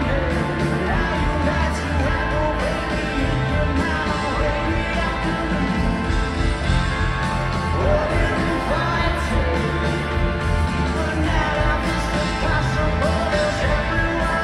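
Live rock band playing loudly and steadily in a stadium, with a singer's voice over electric guitars, bass and drums.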